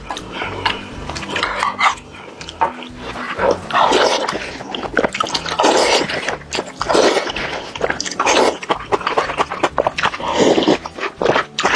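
Close-miked chewing of crispy fried chicken, with crunches and wet mouth clicks coming about once a second.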